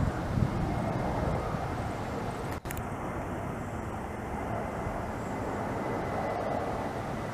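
Jet airliner engine noise, a steady rushing sound with a faint high steady tone, broken by a brief dropout about two and a half seconds in.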